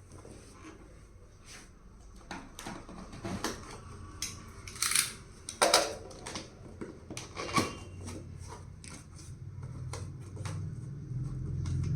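Unboxing a power sander: the cardboard box and packaging are handled, with rustling and scraping and a few sharp clicks and knocks, the loudest between about five and eight seconds in.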